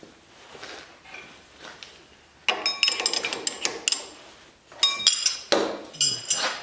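Metal tools and steel brake parts clinking and clattering against each other with a bright metallic ring, in two bursts: one about two and a half seconds in, another near the end.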